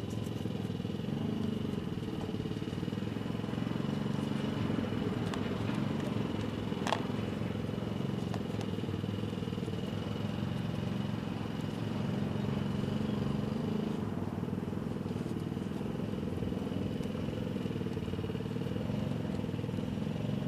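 A motor running steadily in the background, a low even drone, with a single sharp click about seven seconds in.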